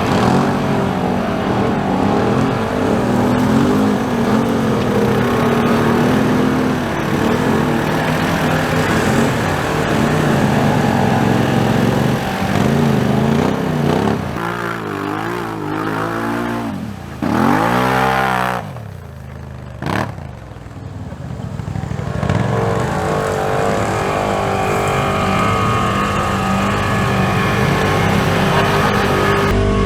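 Side-by-side UTV engine running under throttle, with the revs rising and falling several times about halfway through before settling back to a steady pull.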